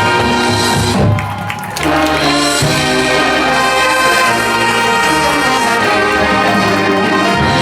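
Marching band brass section playing loudly, with a short break about a second in before the full band comes back on long, held chords.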